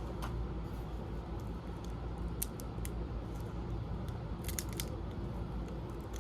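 A few sharp, scattered clicks and snaps of a plastic camcorder casing and parts being handled and pried apart, with a small cluster of clicks about three-quarters of the way through, over a steady low hum.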